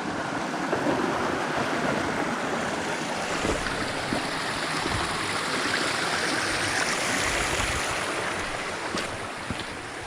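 Steady rushing water of a stream, with a couple of faint clicks near the end.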